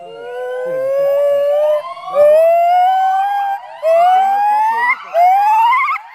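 Male white-cheeked gibbon singing: a series of about four long rising whoops, each climbing in pitch, the notes getting shorter and quicker and the later ones turning warbly.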